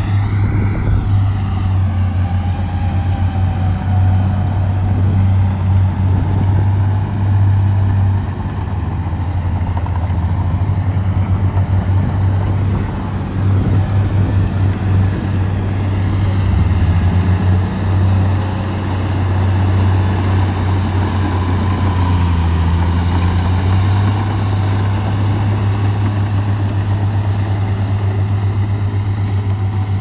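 Shantui crawler bulldozer's diesel engine running under load as the dozer pushes soil. It is a loud, steady low throb that eases briefly a few times.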